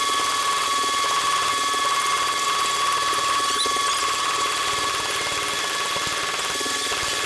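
A 75 kg mechanical power hammer running and striking a red-hot steel billet in rapid, continuous blows, over a steady high-pitched whine.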